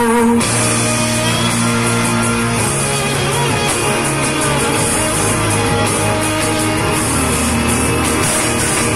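Loud recorded dance music with a rock feel played through stage loudspeakers, the fuller arrangement coming in about half a second in.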